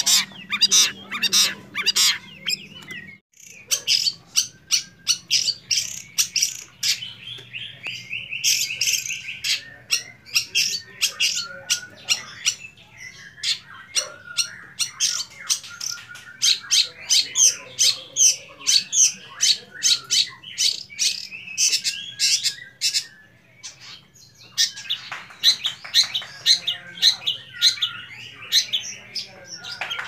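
Young long-tailed shrike (cendet) singing a fast, varied song of mimicked material: dense runs of sharp chattering notes mixed with warbled phrases. There are brief pauses about three seconds in and again near twenty-four seconds.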